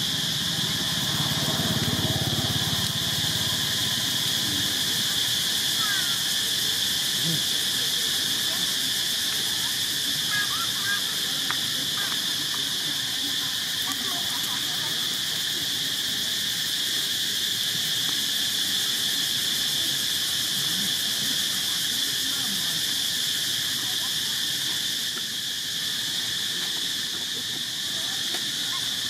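Steady, high-pitched drone of an insect chorus holding one pitch, with a few faint short chirps over it.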